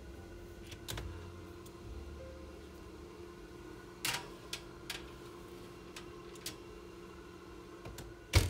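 Oven door shutting with a sharp clunk near the end. Before it come a few light clicks and knocks over a steady low hum.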